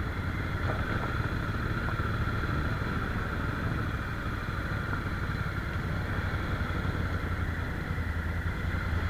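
Adventure motorcycle's engine running steadily at low speed, heard from a camera mounted on the bike itself.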